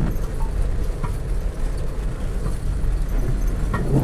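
A car driving slowly over a rough, muddy dirt track in heavy rain, heard from inside the cabin: a steady low rumble of engine and tyres, with rain on the windscreen and a few light knocks from the bumpy road.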